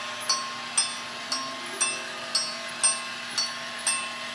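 Toy Christmas train set running around its track, its bell ringing about twice a second over the steady hum of its motor.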